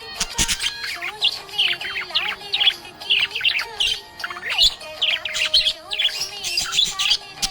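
Budgerigar chirping and warbling: a rapid, continuous run of short high chirps and squeaks.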